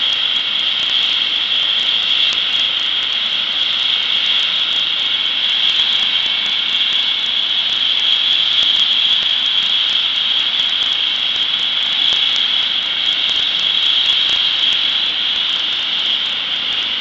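Air ambulance helicopter running on the ground: a steady high-pitched turbine whine over a constant rushing noise.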